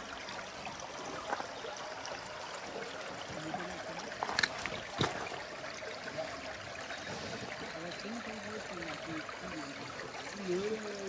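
Steady rushing and trickling of a stream, with two sharp knocks about halfway through.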